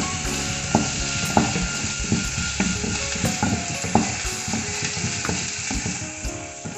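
Crushed shallots, ginger-garlic, green chillies and curry leaves sizzling as they fry in hot oil in a pan. A spoon stirs them, knocking against the pan every second or so.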